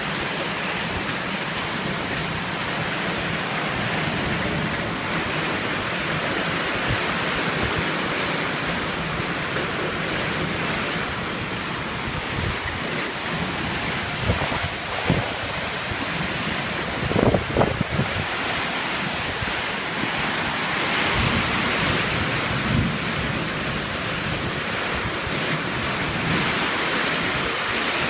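Very strong wind blowing in a steady rush of noise, with a rain-like hiss. Low thumps of gusts buffeting the microphone come a little past halfway.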